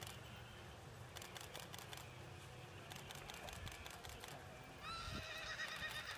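A horse whinnying: one long, wavering call that starts near the end, over faint background with a few light clicks earlier on.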